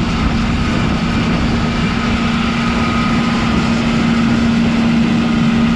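Engine of the farm vehicle towing a combine head cart, running steadily at one even pitch on the road, getting slightly louder toward the end.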